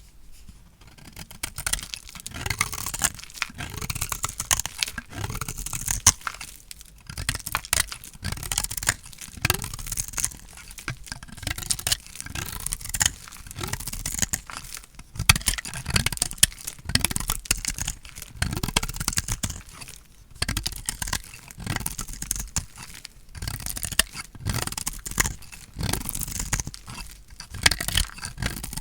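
Dry, painted bar soap being cut with a blade, crunching and crackling in repeated strokes with short pauses between cuts.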